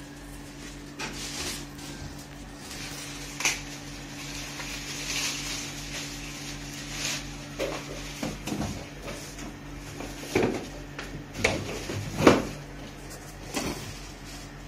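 Plastic parts of a toy ride-on motorbike being handled on a hard floor: light handling noises, then several knocks and clunks from about eight seconds in, the loudest near twelve seconds. A steady low hum runs underneath.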